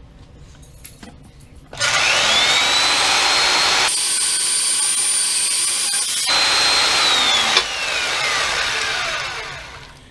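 Electric power tool spinning up with a rising whine about two seconds in, then running steadily. Its sound changes for a couple of seconds in the middle, and it winds down in a long falling whine near the end.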